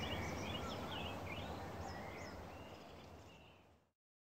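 Outdoor ambience of small birds chirping over a low steady rumble, fading out to silence near the end.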